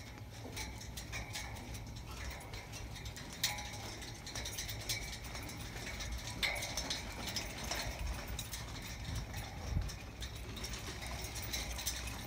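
Footsteps of a person and a dog walking on a metal grate catwalk: irregular clicks and taps, over a steady low rumble.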